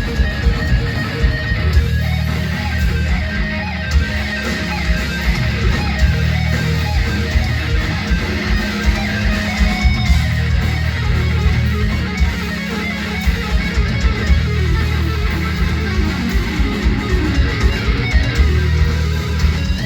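Live heavy metal: a distorted electric guitar solo played over bass and drums.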